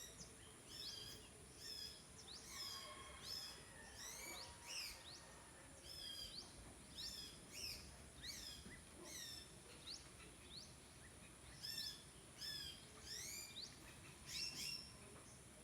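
Small birds chirping: many short, sharply sweeping chirps, one or more about every half second, some overlapping, over a faint steady high-pitched whine.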